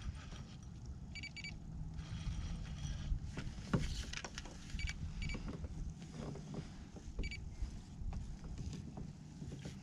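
Wind rumbling on the action-camera microphone while a small fish is reeled in and brought to the surface, with sharp clicks and splashes around four seconds in. Short, high electronic beeps sound about a second in and twice more later.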